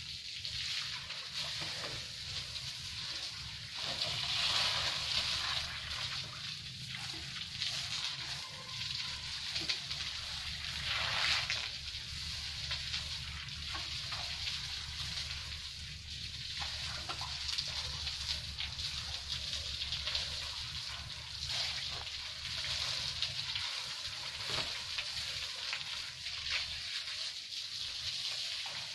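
Water spraying from a garden hose onto cattle and splashing on a concrete floor, a steady hiss that swells and eases a little as the spray moves.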